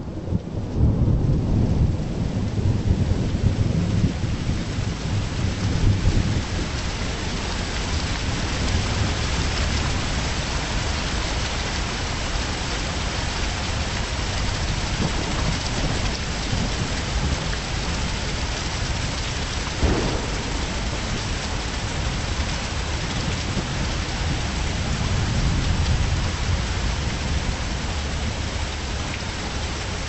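Steady heavy rain, with thunder rumbling loudest over the first several seconds and swelling again near the end. There is one sharp crack about two-thirds of the way through.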